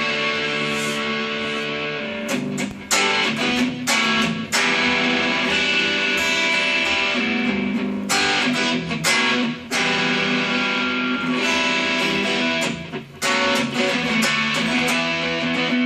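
Epiphone Sheraton semi-hollow electric guitar on its neck pickup, played through a LoveDrive overdrive pedal (a Zendrive clone) with its gain and voice turned up: overdriven chords left to ring, with several sharply picked strums in between.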